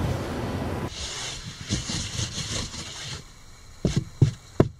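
A rough, hissing scraping noise for about two seconds, then three short, sharp knocks near the end.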